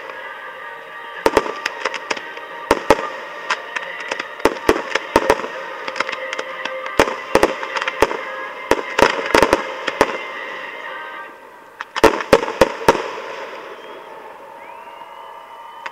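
Fireworks display: aerial shells bursting in quick succession, a rapid string of sharp bangs. The bangs ease about eleven seconds in, then come back in a tight cluster about a second later.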